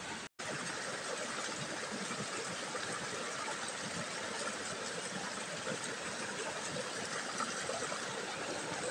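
Steady rush of flowing stream water, cutting out completely for a moment about a third of a second in.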